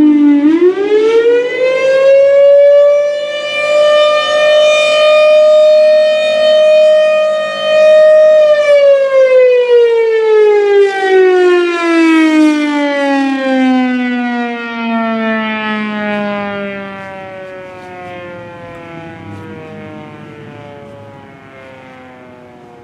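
1957 Federal Sign & Signal Thunderbolt 1000 siren sounding loud: after a brief dip in pitch it rises again and holds one steady tone for several seconds. Then it winds down in a long falling tone that fades as the rotor coasts toward a stop, at the end of its attack signal.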